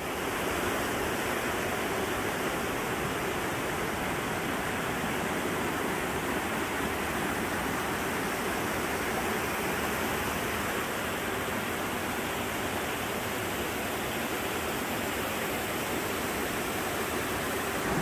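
Mountain stream rushing over rocks and small cascades: a steady, even rush of water.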